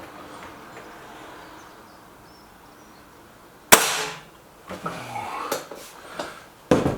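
A single shot from a Stoeger RX20 S2 suppressed break-barrel air rifle, a sharp crack about halfway through that dies away quickly.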